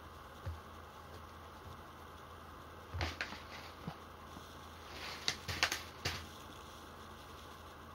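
Gloved hands handling a plastic bag of airsoft BBs: short crinkles and light clicks about three seconds in and again between five and six seconds, over a low room hum.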